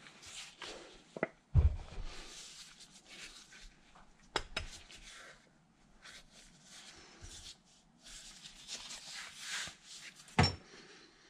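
A heavy three-jaw lathe chuck being handled and set down on a workbench: a few scattered metal clunks and knocks, the loudest about one and a half seconds in, with soft scraping and rustling between.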